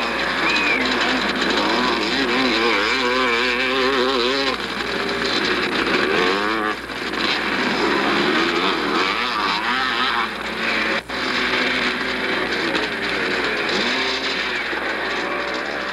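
Motocross motorcycle engines running and revving up and down as bikes race around the track, heard through a Super 8 sound camera's microphone with a warbling, lo-fi quality.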